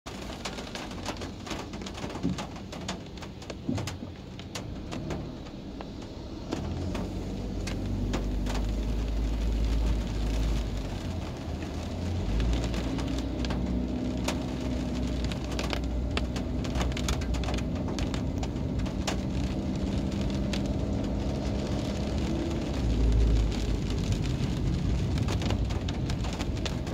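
Raindrops tapping on a car's windshield and body, heard from inside the cabin as many sharp ticks over a steady hiss. A low rumble of the car moving on the wet road, tyres swishing on asphalt, grows louder about seven seconds in.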